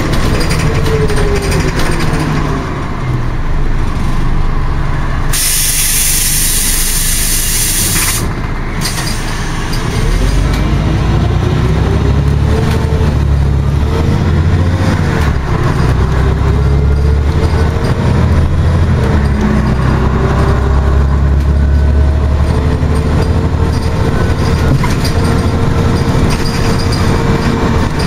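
Cabin sound of a Scania OmniCity articulated bus on the move: a steady diesel rumble with a gearbox whine that rises and falls through the gear changes, the rumble growing louder from about ten seconds in. About five seconds in, a loud hiss of compressed air from the bus's air system lasts about three seconds, followed by a short second puff.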